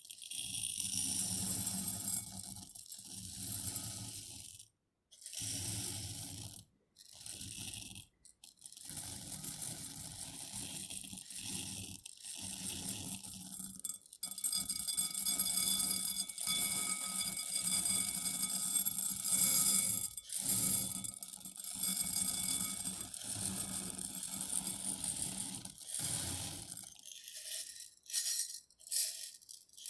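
Dry rice poured into a glass bowl: a continuous hiss and patter of grains with the glass ringing faintly, broken by a few short pauses. Near the end it thins out to scattered grains dropping in.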